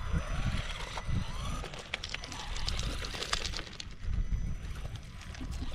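Small RC buggy's brushed 380 electric motor whining steadily as it drives, with scattered clicks and rattles from the tyres and chassis over gravel.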